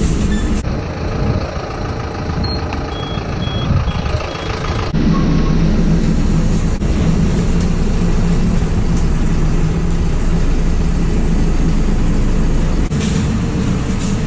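Delivery step van's engine running and road noise heard from inside the cab, rising to a louder, steady drone about five seconds in. A short run of faint high beeps about three seconds in.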